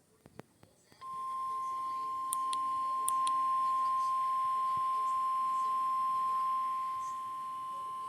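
NOAA Weather Radio 1050 Hz warning alert tone: one steady, unbroken high beep starting about a second in, after a short pause with a few faint clicks. This is the alarm that marks a warning-level alert about to be read.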